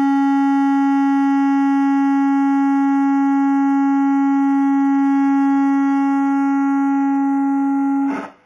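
Music: a single held note with many overtones, steady in pitch and loudness, that cuts off suddenly about eight seconds in.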